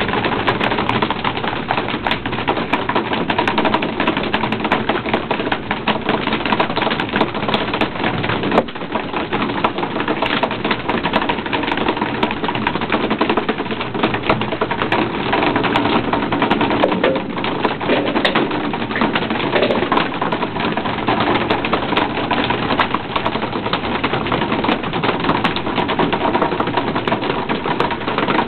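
Dense, rapid clattering over a steady rush of sea water and wind on a fishing boat's deck.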